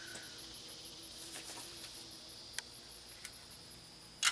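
Insects chirping steadily in the background, a high-pitched pulsing about five times a second over a thin high hiss, with a few faint ticks and a sharp clatter right at the end.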